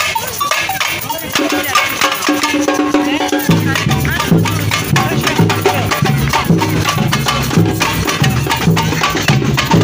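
Carnival drum troupe playing a fast batucada rhythm on snare drums and small hand-held drums struck with sticks, with deep bass beats joining about three and a half seconds in.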